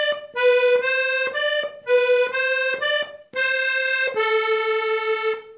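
Carboni diatonic button accordion (organetto) playing a slow melody one note at a time on the right-hand buttons. The melody comes in short phrases with brief breaks and ends on a long held note.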